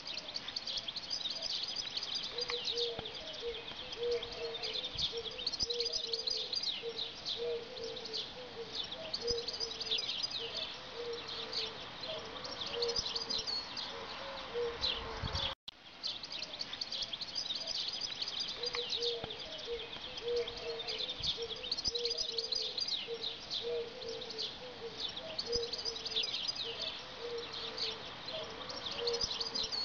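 Birdsong: many small birds chirping and twittering densely, over a lower call repeated in short notes. There is a brief dropout about halfway through, after which the same kind of chorus carries on.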